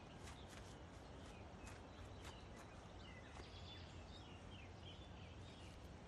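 Quiet outdoor ambience with faint chirps from small birds. Soft footsteps tick in the first half.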